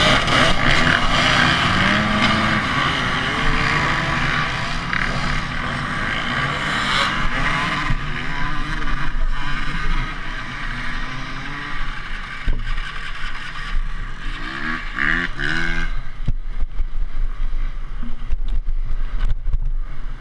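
Many two-wheeled dirt bike engines revving together at a mass start, with one engine revving up sharply near the end, after which the sound settles to a lower, uneven running.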